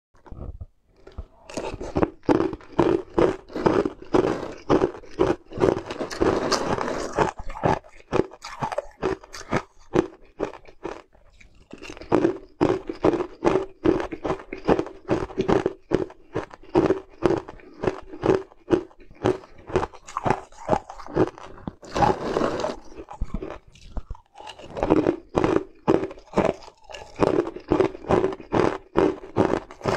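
Ice cubes being bitten and chewed close to the microphone: a rapid run of sharp, loud crunches, about three a second, broken by a couple of short pauses.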